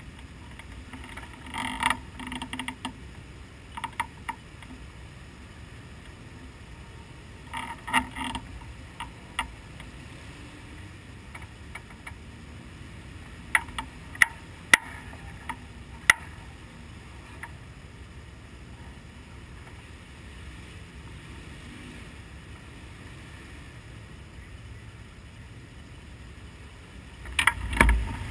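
Scattered light mechanical clicks, ticks and creaks from the cockpit of a stationary midget race car over a low steady background. Near the end an engine comes in and quickly grows loud.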